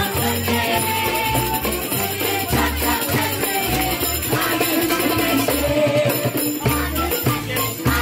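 Live instrumental music from a small ensemble with a kanun and a flute, playing a melody over a bass line and a steady beat.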